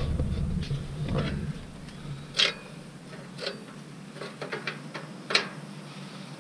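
A few sharp metallic clicks and knocks, several seconds apart, as the cap and lighter are worked at the top of a rusty oil-burning heater to light it, over a low steady hum.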